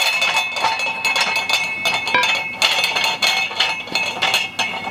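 Steel manual tire changer clinking and rattling as its long bar is worked, metal knocking on metal in quick irregular clicks, with a faint metallic ringing underneath.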